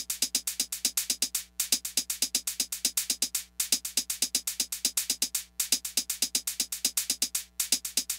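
Electronic intro music: a fast, even run of short clicky percussive hits that breaks off for a moment about every two seconds.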